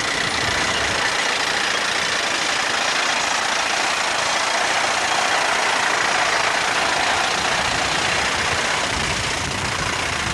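Horse-drawn reaper cutting standing grain, its cutter bar and gearing clattering steadily.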